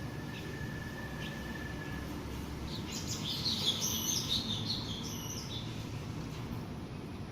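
A bird chirping in a quick cluster of high calls for about three seconds, over a steady low background rumble. A thin steady whistle sounds for the first two seconds.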